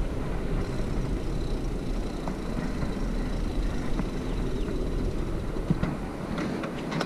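Mountain bike rolling over brick paving: a steady rumble of the tyres and the rattling bike, with a few short sharp knocks near the end.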